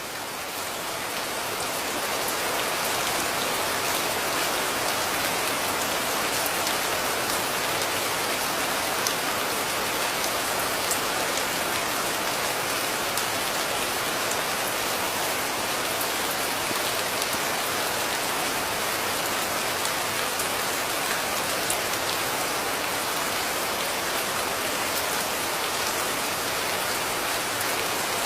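Steady rainfall with scattered individual drop ticks. It fades in over the first couple of seconds, then holds even.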